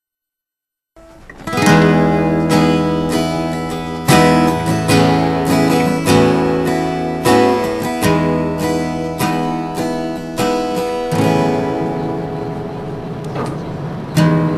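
Music starts about a second in after silence: a strummed acoustic guitar playing chords with a steady beat, opening the song.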